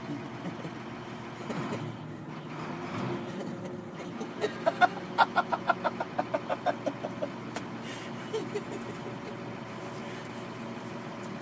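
Military armoured truck's diesel engine idling steadily. About four seconds in, a quick run of about a dozen short pitched pulses cuts through it, loudest at first and fading over some three seconds.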